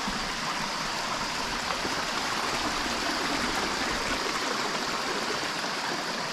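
A mountain stream running steadily, a continuous even rush of water with no breaks.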